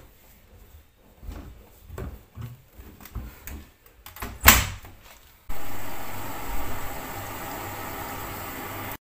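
Light knocks and clatter of household objects being handled, with a loud sharp knock like a cupboard door shutting about four and a half seconds in. About a second later a steady whirring hum with hiss starts suddenly from a household appliance.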